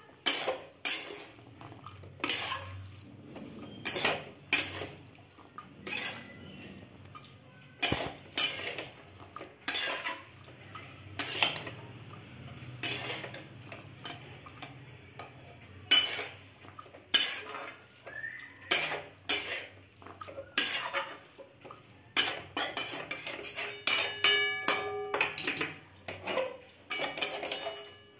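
Flat steel spatula scraping and clinking against a metal kadai as a dry vegetable curry is stirred and turned, in irregular strokes about one or two a second.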